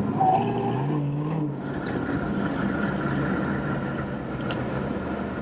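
Lamborghini Urus's twin-turbo V8 running as the SUV cruises, its note rising briefly in the first second or so, then holding steady.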